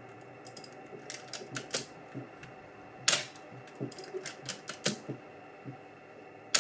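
Canon New F-1 film SLR's titanium-curtain focal-plane shutter firing: a sharp clack about three seconds in and another right at the end. Before each comes a run of lighter mechanical clicks as the film advance lever is wound.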